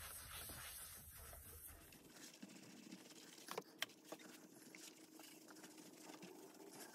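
Faint rubbing of wet 600-grit sandpaper on a hard acrylic sanding block over a painted wing surface, with a few light clicks a little past halfway.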